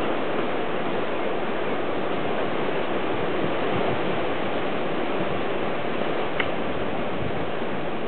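Steady, even rushing noise with no pitch or rhythm, and a single short click about six and a half seconds in.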